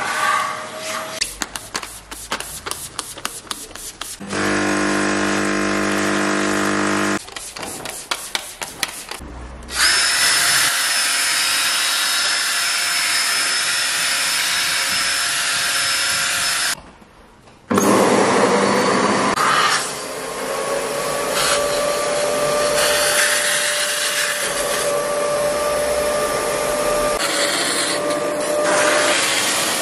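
Car-interior cleaning tools in turn: clicking and scraping from a vacuum nozzle on carpet, then a cordless drill spinning a round scrub brush over a cloth seat. The drill motor spins up, then runs steadily under a rough scrubbing noise, with a few short cuts between the sounds.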